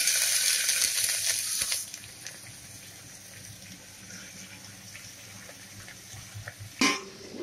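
Freshly washed, finely chopped cabbage going into hot oil in a pressure cooker: a loud burst of sizzling for about two seconds, settling into a quieter, steady frying hiss. A brief sharp sound comes near the end.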